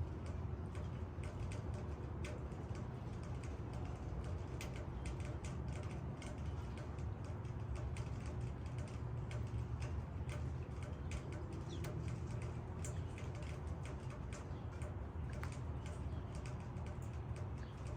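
Rain falling on leaves: a steady low rush of rain with many irregular, sharp ticks of single drops striking.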